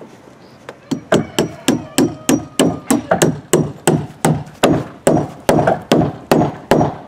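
Claw hammer striking the wooden hull of a boat under construction: a rapid, steady run of about twenty blows, roughly three a second, starting about a second in.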